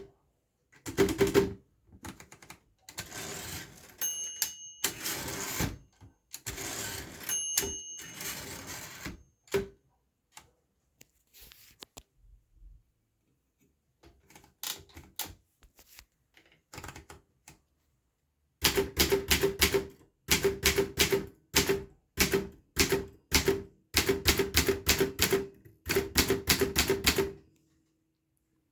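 Optima Elite manual typewriter: the carriage is moved along with a rough sliding clatter and two short ringing tones in the first ten seconds, the carriage making a sound that the owner notices whenever it moves. From about two-thirds of the way in comes a fast, steady run of keystrokes.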